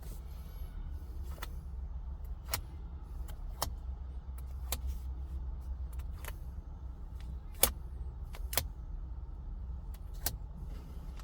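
A handful of light, irregular clicks from handling a tempered glass screen protector and its packaging, over a steady low hum. The loudest click comes about seven and a half seconds in.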